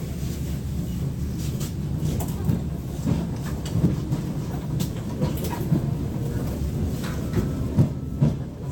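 ER9M electric multiple unit running on the rails: a steady low rumble with irregular wheel knocks over rail joints, the loudest knocks near the end.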